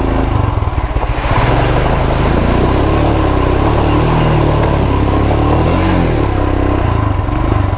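Royal Enfield Himalayan's 411 cc single-cylinder engine revving up and down as the motorcycle fords a shallow creek, with water splashing around the wheels.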